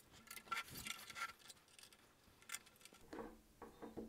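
Faint clicks and light rubbing of 3D-printed robot-arm parts being handled and fitted together. There are several small ticks in the first second and a half, a single click about two and a half seconds in, and soft rustling near the end.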